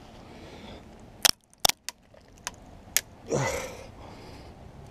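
A compact digital camera's lens barrel crushed in a bench vise, cracking and snapping as the plastic and glass give way. There are about half a dozen sharp cracks over a couple of seconds, then a longer sound that falls in pitch near the end.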